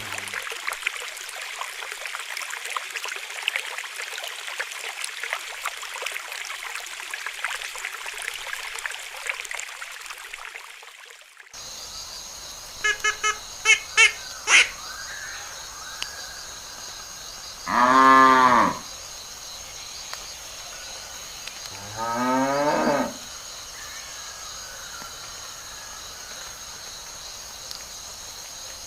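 A steady hissing noise that cuts off suddenly about eleven seconds in, then a steady high insect chirring with a few short chirps. Over it a cow moos twice, each call about a second long; the second rises in pitch.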